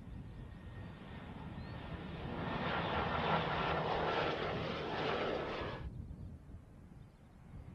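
C-130 Hercules four-engine turboprop passing low on its climb-out after takeoff. Its engine noise swells to a loud rush with a faint steady whine, then cuts off abruptly about six seconds in.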